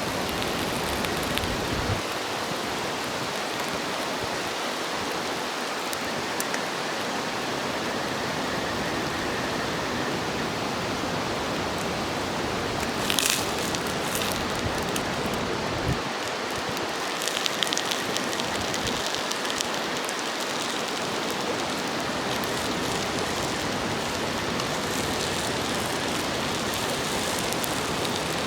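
Bacon yakisoba sizzling steadily on an iron griddle over a campfire. A few sharp clicks and scrapes come through about halfway and again a few seconds later.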